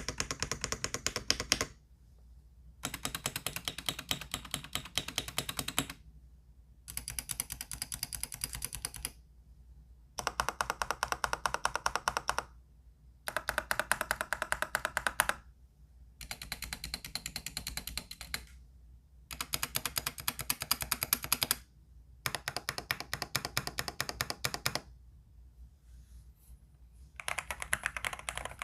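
Dareu A98-series gasket-mount mechanical keyboard being typed on quickly in separate bursts of two to three seconds, about nine in all, with short pauses between them. The bursts differ from one another in tone, some brighter and some deeper.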